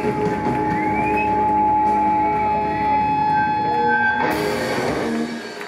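Live rock band's closing wash of sound: electric guitars sustaining and sliding in pitch over a held keyboard note, with a crash about four seconds in, then everything dies away near the end.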